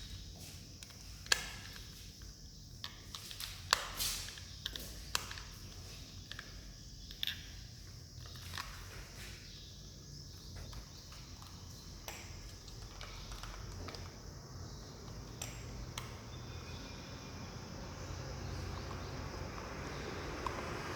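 Irregular sharp clicks and taps of hand tools and small switch parts being handled while a fan regulator is fitted, over a steady low hum.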